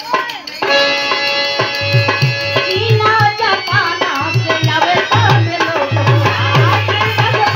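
Live Indian folk song: a harmonium comes in with held notes about half a second in over a steady dholak beat, and a woman's voice sings a wavering line from about three seconds in.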